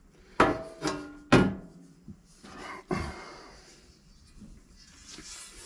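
Metal griddle clanking against a steel workbench as it is handled and turned over: three sharp, ringing knocks in the first second and a half, then a brief scrape and another knock about three seconds in.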